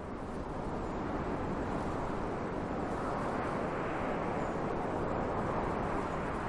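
Wind blowing steadily across snowy mountain terrain, a rushing noise that swells a little midway.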